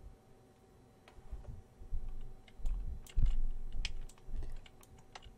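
Computer keyboard typing and clicking picked up by an open microphone on a video call, with a few dull low thumps, the loudest about three seconds in.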